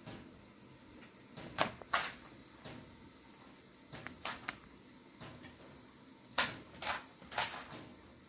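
A metal spoon knocks and clinks against the dishes as cooked rice is scooped from a plastic colander into an aluminium pot. The sharp clinks come in clusters of two or three.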